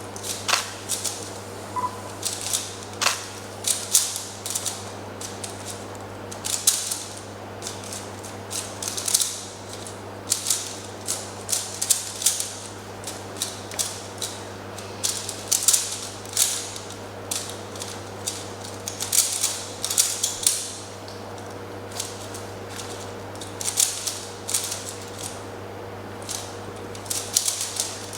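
Rubik's cube being turned rapidly by hand in a speed solve: the plastic layers clack in quick runs of clicks with short pauses between. A steady low hum lies underneath.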